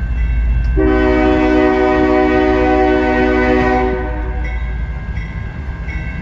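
A CSX freight locomotive's air horn sounds one long blast of about three seconds, a steady multi-note chord, over the low rumble of the approaching train. A crossing bell dings faintly and regularly before and after the blast.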